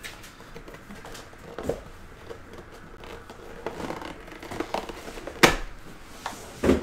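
Cardboard collectible box being handled and opened by hand: rustling and scraping of cardboard with small clicks, a sharp snap about five and a half seconds in, and a thump near the end.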